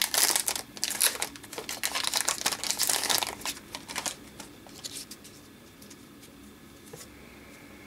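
Foil wrapper of a hockey card pack being torn open and crinkled: a dense run of crackles for about four seconds, which then stops, leaving faint room tone.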